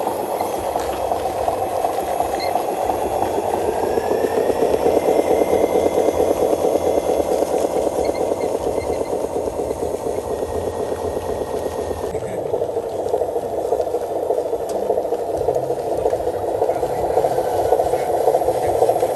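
Small electric motor and gearbox of a remote-control model truck running as it tows a trailer over dirt, a steady buzzing whir that eases a little midway and swells again near the end.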